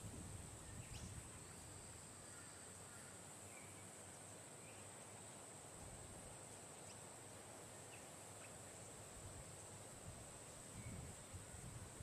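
Faint natural ambience: a steady high-pitched insect drone, with a few faint short chirps scattered through.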